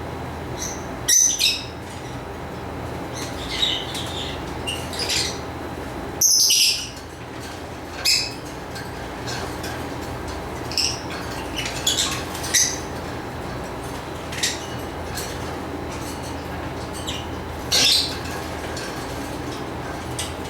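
Lovebirds chirping: short, high-pitched chirps at irregular intervals, the loudest about a second in, around six seconds in and near the end, over steady background noise.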